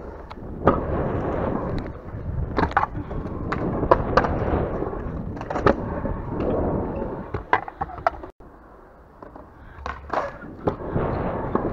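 Stunt scooter's small hard wheels rolling over concrete with a steady rumble, broken by about ten sharp clacks. The rumble drops away for a second or so past the middle, then picks up again.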